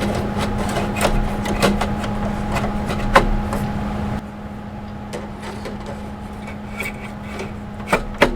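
Mac Pro drive sleds sliding into their drive bays: scraping with a run of clicks and knocks, the sharpest about three seconds in, and two more clicks near the end. A steady hum sits underneath.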